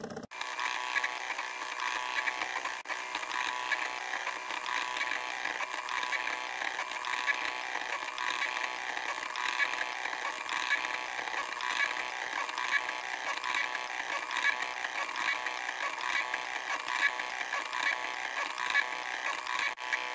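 A NEJE laser engraver buzzing and whirring steadily as its stepper motors drive the laser back and forth, burning an image into wood.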